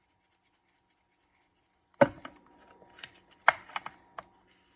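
Black pepper container being handled: one sharp click about two seconds in, then a scatter of lighter, irregular clicks and taps.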